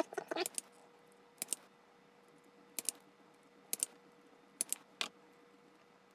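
Hand-held wire strippers clicking as the ends of insulated wires are stripped: short sharp clicks, mostly in pairs, about once a second, over a faint steady hum.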